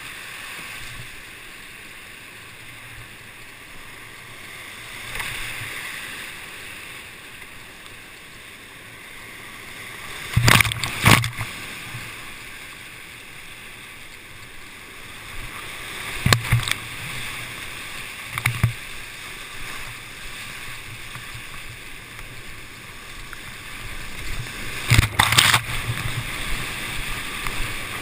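Class V whitewater rapid rushing steadily around a kayak, broken by sudden loud splashes of waves crashing over the boat: a close pair about a third of the way in, single ones a little past the middle, and another close pair near the end.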